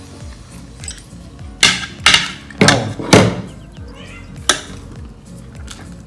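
Metal fork and chopsticks clattering and scraping against ceramic plates as noodles are stirred, with about five sharp clinks in the middle few seconds.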